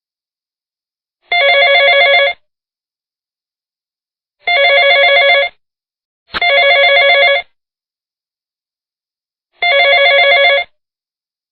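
Telephone ringing: four trilled rings of about a second each, separated by silence, the third following closely on the second.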